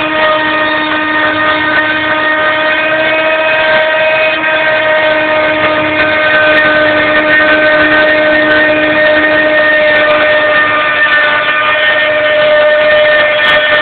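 CNC mill's spindle cutting 2.5 mm ABS plastic sheet: a loud, steady whine with several even overtones.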